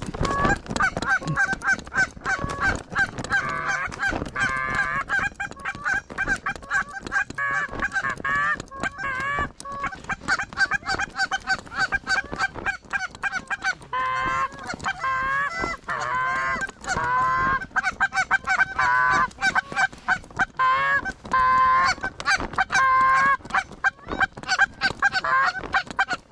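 Canada goose honks and clucks, many short calls in quick succession that grow busier and louder about halfway through.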